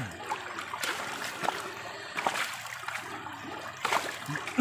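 Shallow river water sloshing and trickling around a gold pan as it is swirled and dipped to wash sand and gravel, with a few short, sharp splashes.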